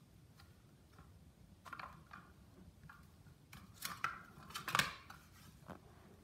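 A puppy's claws clicking and scrabbling on a hardwood floor in a few short irregular bursts, the loudest about four to five seconds in.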